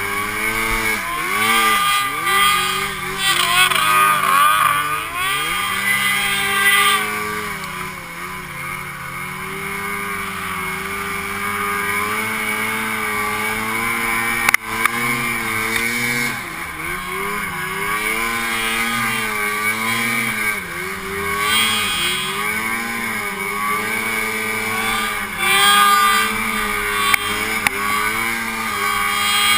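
Snowmobile engine being ridden under varying throttle, its pitch rising and falling again and again as the rider speeds up and eases off. A single sharp knock about halfway through.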